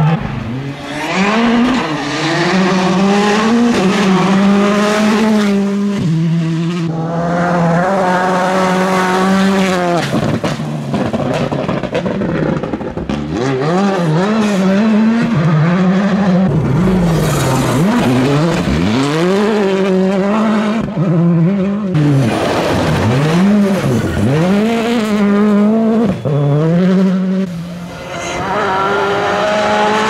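R5 rally car's turbocharged four-cylinder engine revving hard on a gravel stage. The pitch climbs and falls again and again as it shifts gears and lifts off for corners.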